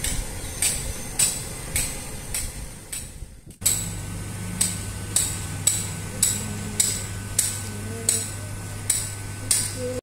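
Sharp knocks repeated evenly, about two a second. After a brief drop in level about three and a half seconds in, a steady low hum joins them.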